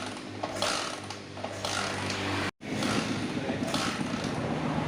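Small motorcycle engine running, with regular strokes over a steady low hum; about halfway through the sound cuts off for a moment and comes back as a rougher, denser running sound.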